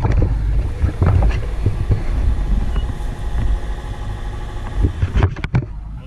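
Deep steady rumble of wind and sea motion on the microphone aboard a sailboat under sail offshore, with several knocks from the camera being handled, including a quick cluster near the end.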